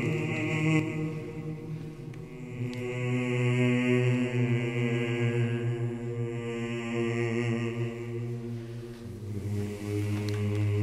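Slow background music of low, sustained chanted voices holding long notes, moving to a new, lower chord about nine seconds in.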